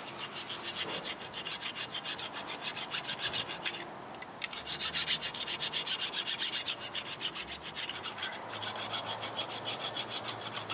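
Hand tool scraping rust scale off a rusted steel rear brake caliper bracket in quick back-and-forth strokes, about five a second, with two short pauses. The strokes are cleaning the abutment-clip surfaces of built-up rust.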